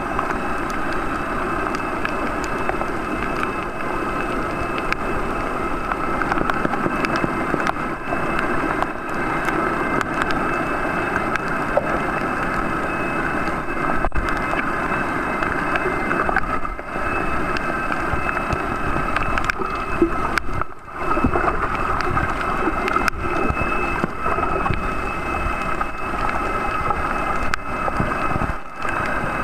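Steady underwater noise picked up by a submerged camera: an even rushing hiss with a constant hum running through it.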